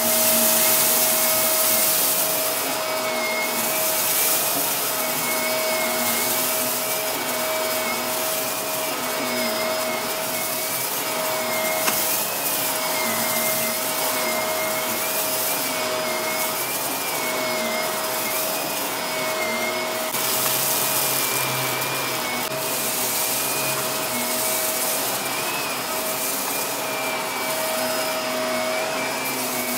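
Shark upright vacuum cleaner running continuously while it is pushed back and forth over carpet. It gives a steady whine with a higher whine that wavers slightly, over a rushing hiss that swells and fades with the strokes.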